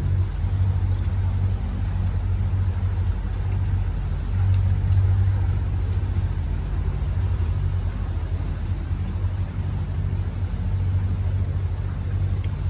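Tour boat's motor running steadily at low speed, a constant low hum that swells slightly about four seconds in, with water churning along the hull.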